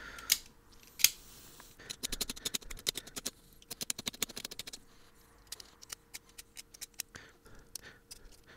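Small razor blade scraping the enamel off the end of a piece of magnet wire: a quick run of short scratching strokes between about two and five seconds in, then scattered ones, with two sharper clicks near the start.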